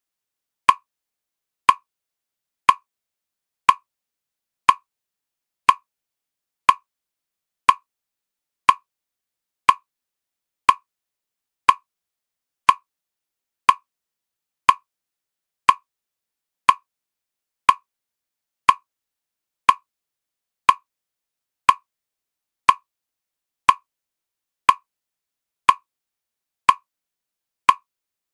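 A single short tick with a brief ring, repeated steadily once a second with silence between: a paced listening cue for concentration training.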